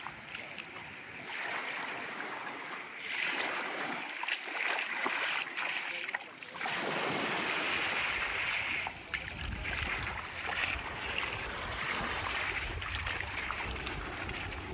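Small sea waves washing onto a sandy beach in a steady hiss that swells and ebbs. A low rumble joins about halfway through and carries on.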